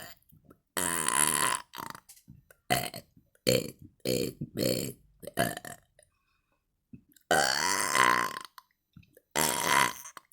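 A woman burping on command, with no soda needed: a string of about eight burps, several short and quick, three longer and louder.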